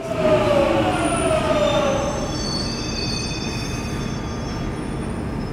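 Electric train slowing: a whine of several tones falls in pitch over the first two seconds, then thin high squealing tones sound over a steady rumble.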